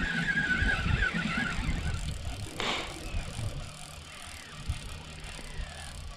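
Fishing reel being cranked while a fish is played on the line: a wavering mechanical whine with rattling that fades out about two seconds in, followed by a short rustle and a quieter low hum.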